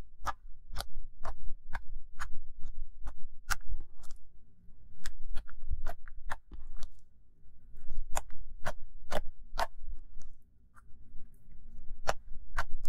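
Wet clicking pops from homemade shampoo, toothpaste and sugar slime as fingers press into it and pull away, about two sharp clicks a second, pausing briefly twice.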